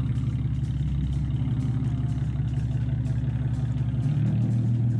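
Infiniti G37's 3.7-litre V6 running steadily on its old dual exhaust, a continuous low drone whose note shifts slightly about four seconds in.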